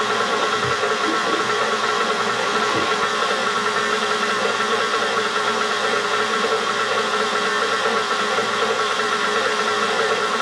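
Electric stand mixer motor running steadily as it kneads sourdough bread dough.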